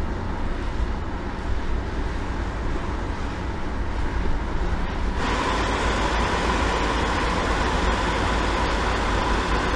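Road driving noise: steady tyre and wind rumble of vehicles moving along the road. About five seconds in it turns suddenly brighter, with more hiss and a faint steady whine.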